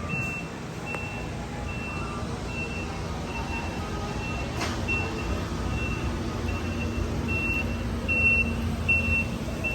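Electronic warning beep repeating about three times every two seconds, a single high tone, over the low rumble of the PeopleMover ride system, which strengthens in the second half.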